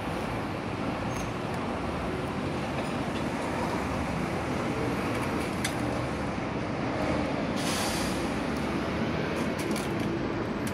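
Steady rumble of vehicles and traffic, with a brief hiss about three-quarters of the way through. A few faint clicks come from a cat eating dry kibble from a stainless steel tray.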